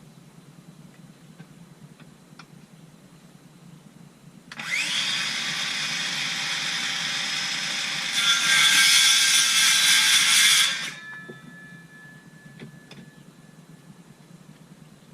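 Electric power tool motor running for about six seconds: it spins up with a rising whine about four and a half seconds in, runs steadily, turns louder about three seconds later, then stops.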